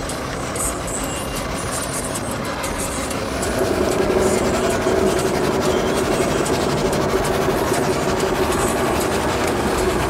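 An engine running steadily, getting louder about three and a half seconds in.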